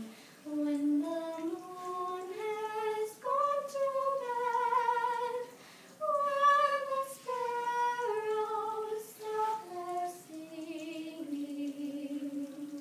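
Two students singing a slow song unaccompanied, in unison, as one melodic line of held notes stepping up and down. There is a short breath pause about halfway through.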